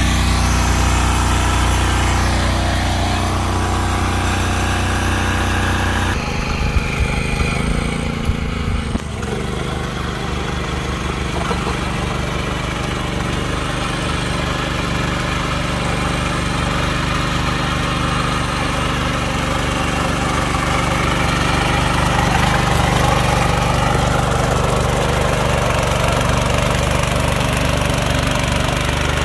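Small engine of a mini power tiller running steadily. A few sharp knocks come around seven to eight seconds in, and about nine seconds in the engine note changes to an even, rapidly pulsing run.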